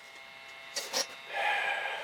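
Pieces of carved scrap wood being handled: two light knocks in quick succession, then a short rubbing scrape.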